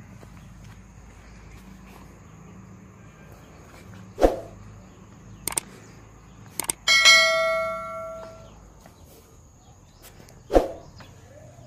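Subscribe-button animation sound effects: a short thump, a few clicks, then a bell ding that rings for about a second and a half, and another thump near the end. Under them runs a steady high insect drone.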